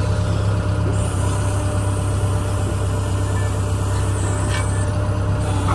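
Excavator's diesel engine running steadily at low revs with a deep, even hum, and a faint high hiss through the middle.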